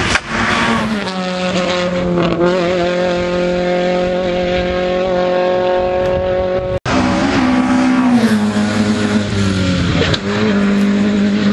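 Rally car engine approaching at high revs, holding a steady note with drops in pitch about a second in and twice more later on. The sound is briefly cut off about two-thirds through.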